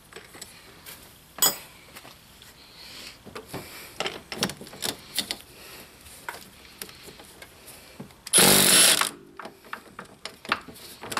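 Cordless Milwaukee Fuel brushless power tool running in one loud burst of about a second, near the end, at a motor-mount bolt whose threaded hole has stripped. Scattered clicks and knocks of the tool and socket being handled come before it.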